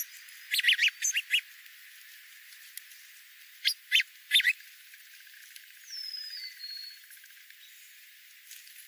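Wild songbirds calling: a quick cluster of short, sharp chirps about half a second in, three more chirps near the middle, then a single whistled note sliding down in pitch.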